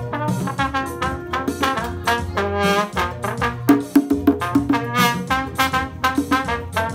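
A trumpet and a trombone playing a melody together, with held, wavering notes, over a beat of hand drums struck in quick strokes.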